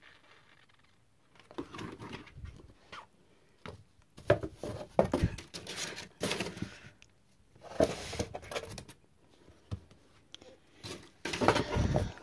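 Paperback picture books and a cardboard shipping box being handled: irregular rustling and sliding of paper and card, with several sharp knocks as books are set down.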